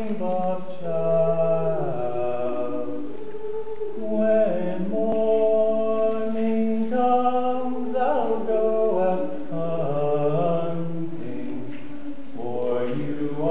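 Mixed high-school concert choir singing slow, sustained chords, the voices holding each note together for one to three seconds before moving to the next.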